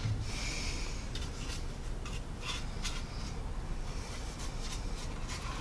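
Paintbrush brushing panel line wash over a plastic scale model airframe. There is a soft swish just after the start, then several short, faint brush strokes.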